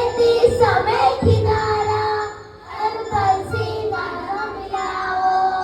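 A group of children singing a song with musical accompaniment and a steady beat.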